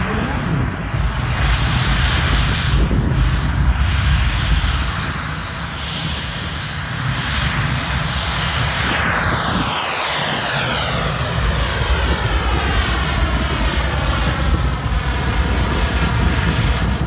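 JetCat P300 Pro turbine of a large model jet running at high power, a steady jet roar with a deep rumble, as the jet hovers on its thrust and then climbs away. From about the middle on, the roar takes on a sweeping, phasing sound as the jet gains distance.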